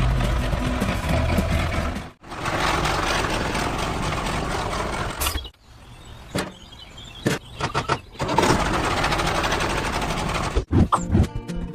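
Mini tractor's engine running, in several stretches broken by abrupt cuts, with a quieter spell around the middle. A few sharp knocks come near the end.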